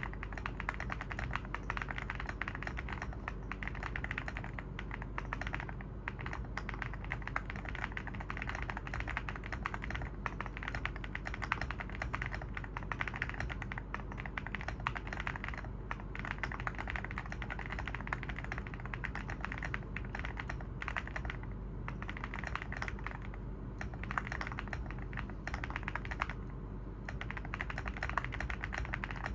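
Continuous fast typing on an Evoworks EVO80 mechanical keyboard with Oat linear switches on a polypropylene (PP) plate: a dense, even stream of keystroke clacks, with a few brief pauses.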